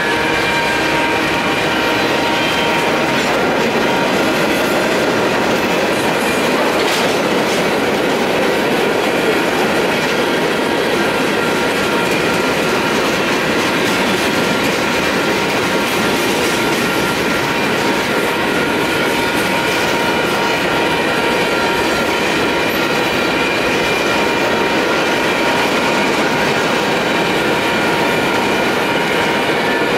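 Freight cars rolling steadily through a grade crossing, their wheels clattering over the rail joints. Over them the crossing bells ring without pause: a WCH Type 1 electronic bell and a slightly scratchy Type 3 bell.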